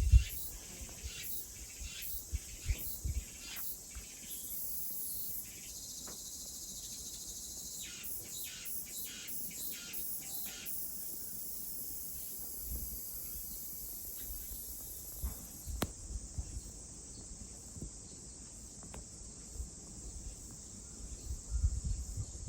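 Summer insects trilling steadily in a high, continuous chorus, pulsing rhythmically in the first half. Short bird chirps come through here and there, with a low rumble at the start and again near the end.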